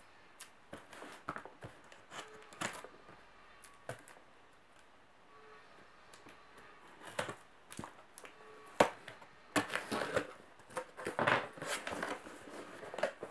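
A cardboard parcel being cut open with a knife and unpacked: scattered scrapes, clicks and rustles of blade, tape and cardboard, thickest in the last four seconds.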